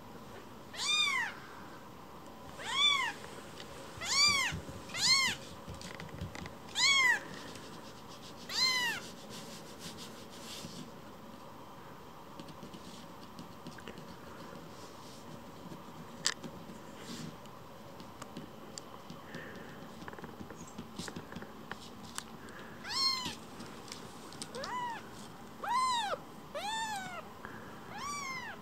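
Very young kitten mewing: short high calls that rise and fall in pitch, about one a second, in two runs with a quiet pause of some ten seconds between them.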